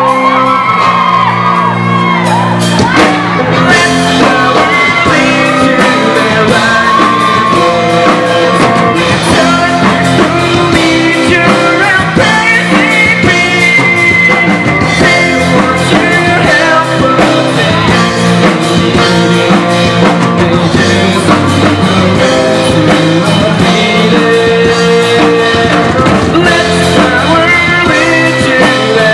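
Live rock band playing a song: electric guitars, bass guitar and drum kit, with a sung vocal line.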